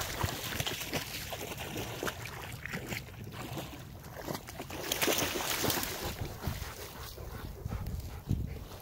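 Wind buffeting the microphone in a snowstorm, with a deep rumble and irregular small clicks and rustles; a stronger gust comes about five seconds in.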